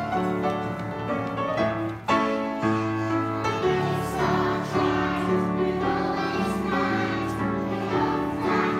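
Music: a choir singing held notes with piano accompaniment, broken by a brief dip about two seconds in.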